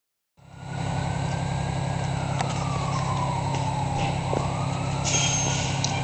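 A medic unit's siren wailing in the distance, one slow fall and rise in pitch, over a steady low engine rumble; the unit is running with its siren on to a fire alarm call.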